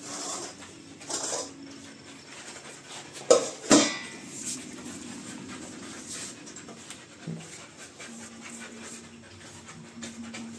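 A dog at its steel food bowl, with steel bowls knocking against a tiled floor as they are set down; two sharp knocks come a few seconds in, the loudest sounds here.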